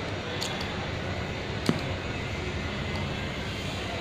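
Magnetic darts hitting a roll-up magnetic dartboard: a faint click about half a second in, then a louder thud of a dart landing near the middle, over a steady background hiss.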